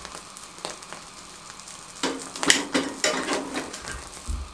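Chicken foot singeing in a gas burner's flame, its skin sizzling and crackling so that it puffs up and loosens for peeling. A few scattered crackles at first, then denser, louder crackling from about halfway in.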